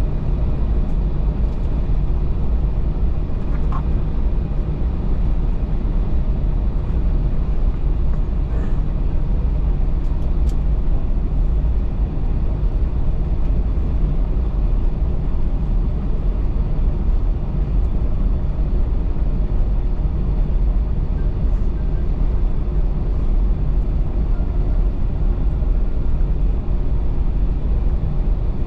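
Steady low rumble inside the cabin of an Airbus A321-211 airliner, from its engines and airflow.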